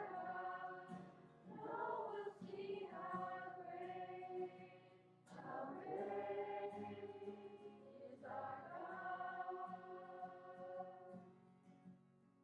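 A church congregation singing a worship song together in long held notes, in phrases a few seconds apart, faint on the recording and fading near the end.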